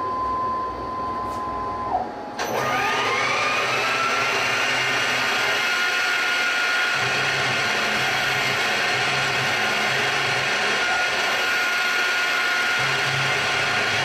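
CNC mill spindle with a 1/8 inch center drill engraving an aluminium plate. A steady whine drops away about two seconds in, then the spindle spins up with a rising whine and runs steadily at speed, while a low motor hum comes and goes as the axes move.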